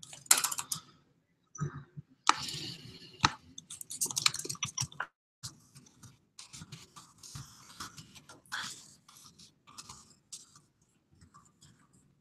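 Typing and clicking on a computer keyboard close to the microphone: irregular runs of key clicks with short pauses between them.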